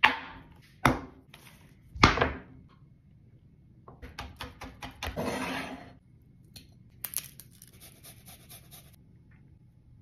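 Kitchen prep handling: three sharp knocks of things set down on a wooden countertop, then a run of clicks and a scrape as a knife blade pushes chopped chipotle in adobo off into a glass mixing bowl. A light, high rasping follows near the end.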